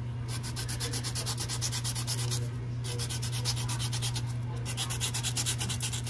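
Disc brake pad rubbed face-down on 220-grit wet-and-dry sandpaper in quick, even back-and-forth strokes, pausing briefly twice. The sanding scuffs the glazed, contaminated surface off the pad to cure disc brake squeal.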